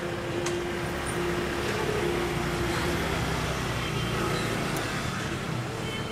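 Busy street-market noise: a motor vehicle engine running close by under a steady low hum, with faint indistinct voices.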